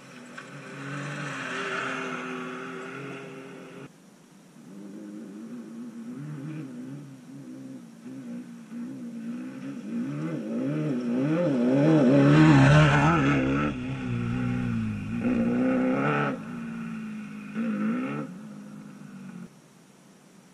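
Off-road race vehicles' engines passing at speed over whoops, the engine note rising and falling rapidly with the throttle. One vehicle passes in the first few seconds, and a second, louder one builds to its closest point just past halfway with a deep rumble; the sound cuts off suddenly near the end.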